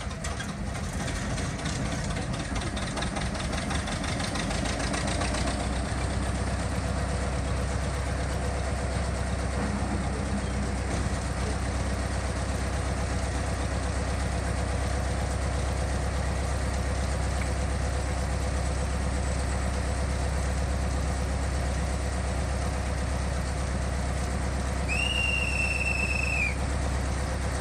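Ruston diesel shunting locomotive's engine running, rough at first and settling into a steady idle about five seconds in. Near the end the locomotive's horn gives one blast of about a second and a half.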